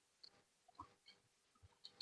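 Near silence with a few faint, soft clicks of chewing mouth sounds.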